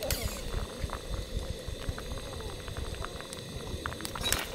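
A pot of seafood kalguksu (noodle soup) boiling, bubbling with many small pops. There is a brief sharp knock near the end.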